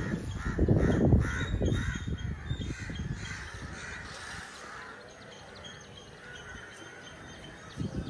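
Crows cawing: a quick run of loud, harsh calls in the first two seconds, then fainter bird calls in the background.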